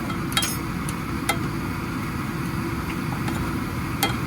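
A spoon clinking a few times against a cooking pan as frying spices are stirred, over a steady low hum from the kitchen.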